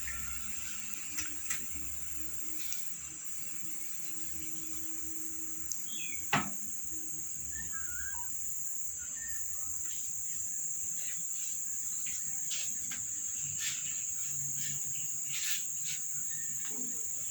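A steady high-pitched whine with a few scattered sharp clicks; the loudest is a single knock about six seconds in.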